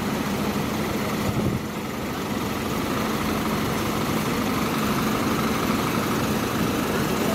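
Scania coach's diesel engine running at low revs with a steady hum as the coach reverses slowly.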